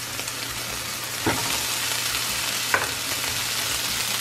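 Diced onion and tomato sizzling in a frying pan while flaked tuna is tipped in from an upturned can. Two sharp knocks cut through the sizzle, about a second in and again near three seconds.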